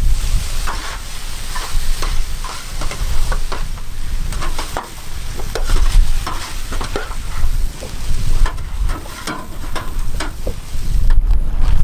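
Paella sizzling in a giant pan while a spatula stirs and scrapes through the rice, with many short scrapes and knocks over a steady sizzle and a low rumble underneath.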